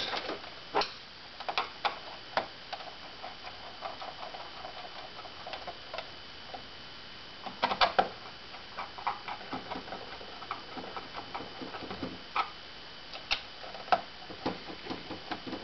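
Small screws being turned in by hand with a screwdriver into a canister vacuum's plastic handle housing: irregular light clicks and ticks of the tool against screw heads and plastic, with a denser run of clicks about halfway through.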